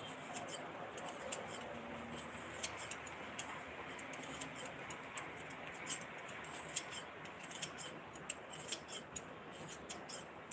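Hands working a soft, pale material at close range: irregular small clicks and crinkling ticks, several a second, over a faint hiss.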